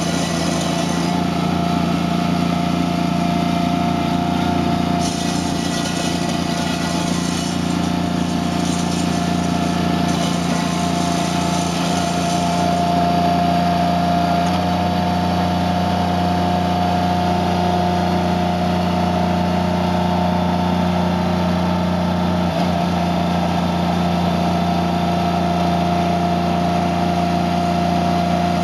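Toro Dingo TX525 compact tracked loader running steadily under load, with a constant whine over the engine hum, as its Harley power rake churns through loose gravel.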